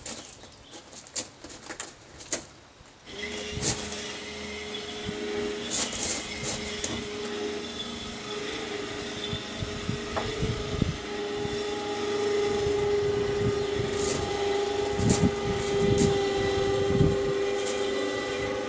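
Electric ATV winch motor starts about three seconds in and runs steadily under load, pulling a 12-foot aluminum boat up onto a truck rack. A few clicks and knocks come before and during the pull.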